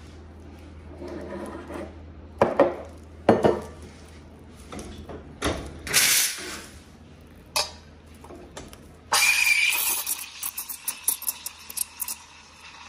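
Stainless steel milk pitcher and cups knocking and clinking on an espresso machine, then a short blast of steam about six seconds in. A little after nine seconds the steam wand opens into a pitcher of milk and hisses steadily, with quick ticking as air is drawn in to froth the milk.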